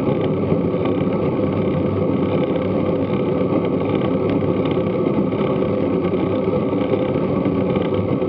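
Steady wind and road noise from a road bike riding in a group, picked up by a bike-mounted action camera's microphone.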